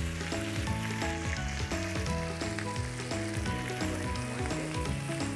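Chicken pieces sizzling in bubbling garlic butter in a pan, under background music with a changing melody and bass line.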